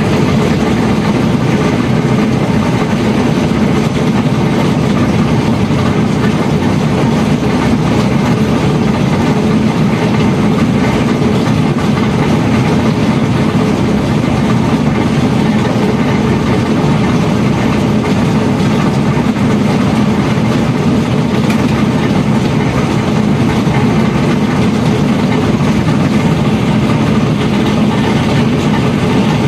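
Hotpoint-Ariston front-loading washing machine on its spin cycle, making a loud, steady noise with a strong low hum. This is the abnormal spin noise of a fault that made the machine not worth repairing.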